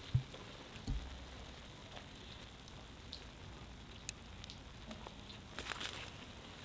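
Faint steady sizzle from a cast-iron kazan of plov on embers, the water boiled off and the oil frying under the rice. Two soft thumps in the first second and a few light crackles later as garlic heads are pressed into the rice.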